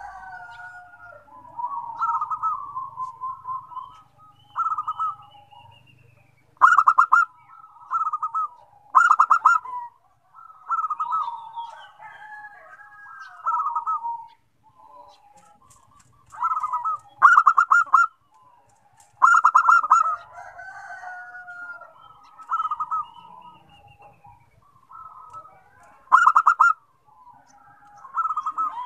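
Zebra doves (perkutut) cooing: short phrases of rapid staccato coo notes repeat every second or two, and some phrases overlap as more than one bird calls.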